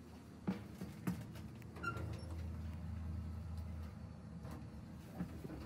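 Elevator car running: a steady low hum that swells for a couple of seconds mid-way, with a few sharp clicks and knocks.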